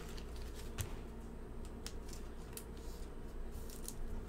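Trading cards being handled by hand: faint, scattered clicks and light rustles of card stock sliding and tapping together.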